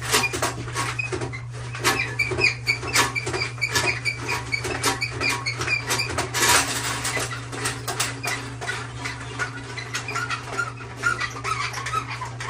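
Closet auger being cranked in a toilet bowl to clear a blockage: the cable and housing clatter and knock against the porcelain, with runs of rapid, high squeaks as the crank turns.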